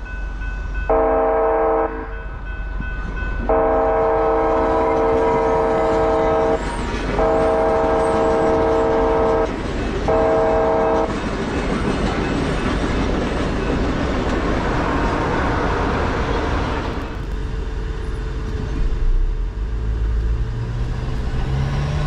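Amtrak Cascades passenger train at a level crossing sounding its horn in four blasts, a short one, two long ones and a short one, then rumbling and clattering past, the noise easing off in the last few seconds. A car engine picks up right at the end.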